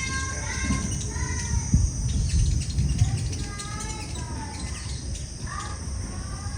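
Sunbirds chirping: clusters of short, thin, down-slurred call notes at the start, around the middle and again near the end. Behind them runs a steady high insect drone and a low rumble.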